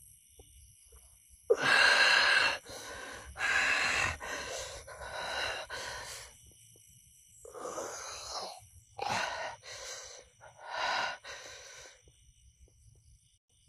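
A person gasping and wheezing in a string of about eight harsh, heavy breaths or groans, the first the loudest.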